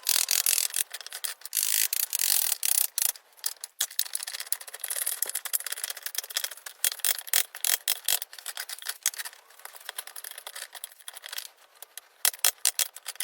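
Rapid, irregular scraping and rasping strokes of a hand tool working wood, cutting out a channel in a 4x4 timber.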